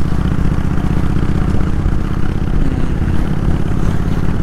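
Kawasaki VN800 V-twin motorcycle engine running steadily while riding.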